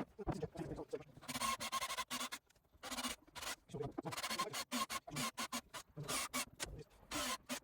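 Rapid, irregular scraping and rubbing strokes as hardened Gripfill adhesive is cleaned out of a wooden chair's joint hole by hand.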